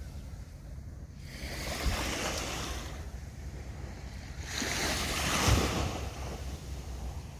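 Small waves breaking and washing up on the beach twice, each swelling and fading over a couple of seconds, over a low wind rumble on the microphone.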